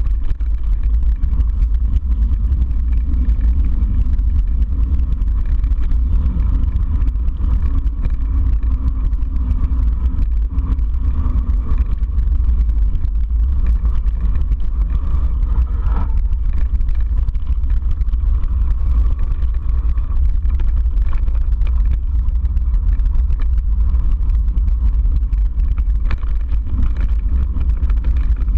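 Steady low rumble of wind on the microphone and the mountain bike's tyres rolling over a gravel track covered in fallen leaves on a fast descent, with a short falling squeak about halfway through.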